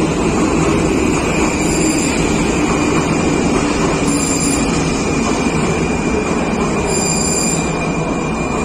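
Prague metro 81-71M train running into the station alongside the platform: steady rumble of wheels and traction gear, with a thin high wheel squeal held throughout.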